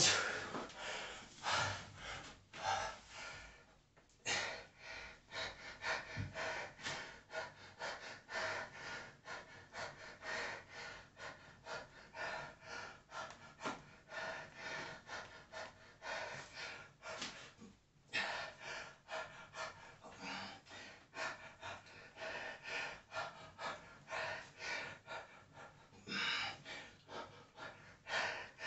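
A man breathing hard with exertion through a set of one-arm dumbbell rows. He takes short, sharp breaths in and out, about two a second, with brief pauses about four and eighteen seconds in.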